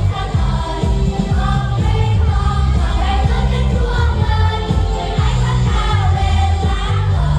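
Primary school children singing together in Vietnamese over an amplified backing track with a steady bass beat.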